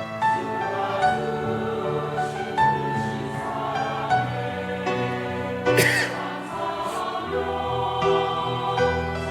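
Church choir singing a hymn, holding long notes that move together in several parts.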